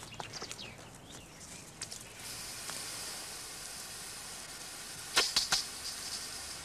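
Garden lawn sprinkler spraying water, a steady hiss that starts about two seconds in. A quick run of sharp ticks comes about five seconds in.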